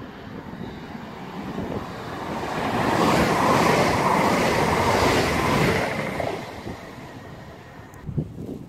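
A passenger multiple-unit train running through the station at speed without stopping: the rush of wheels and air swells, peaks for a few seconds and fades away, with a steady high tone through it. A few thumps of wind on the microphone near the end.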